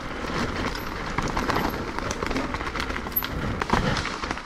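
Mountain bike on a rough trail: tyres rolling over dirt and rock with irregular knocks and rattles, over a steady low rumble.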